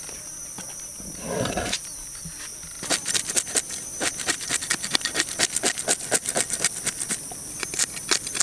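A knife blade scraping scales off a fish in quick rasping strokes, several a second, starting about three seconds in. Before the scraping there is a brief low rustle about a second in, and a steady high insect buzz runs underneath throughout.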